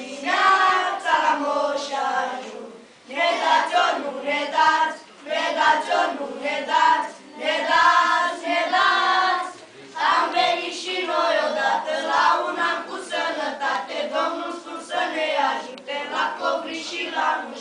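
A children's choir singing a Romanian Christmas carol (colind) together, in phrases a couple of seconds long with short breaths between them.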